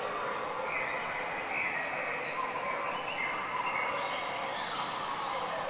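Steady outdoor hiss with faint high tones drifting in and out.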